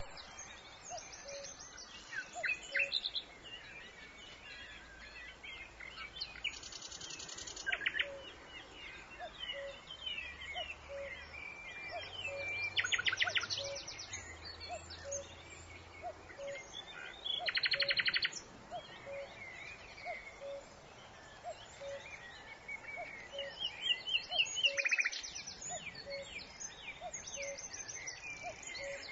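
Several songbirds singing and chirping together, with a few rapid trills about a second long breaking in now and then. Under them a frog calls with a short low note repeated about once a second.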